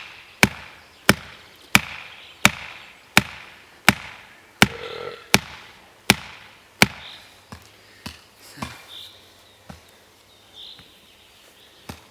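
Axe chopping wood: about ten sharp, evenly spaced blows, roughly one and a half a second, then a few lighter, irregular knocks after about seven seconds.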